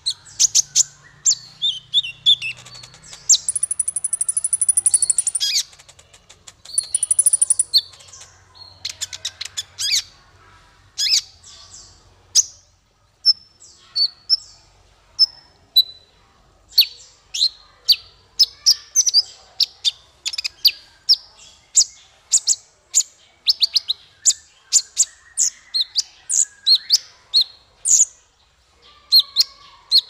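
Male van Hasselt's sunbird (kolibri ninja) singing: a quick run of sharp, high chirps, with two fast, very high buzzing trills about 3 and 7 seconds in, and denser chirping in the second half.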